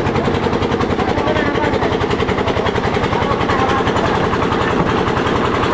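Engine-driven oil expeller of a village oil mill running steadily, with a fast, even chugging beat and a low hum.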